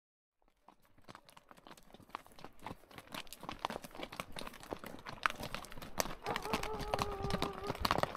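Horses' hooves clip-clopping at a walk, fading in about a second in and growing louder. A brief steady held tone sounds near the end.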